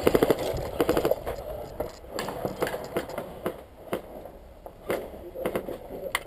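Footsteps on concrete and gravel, a separate step about every half second, with a rapid rattle of clicks in the first second.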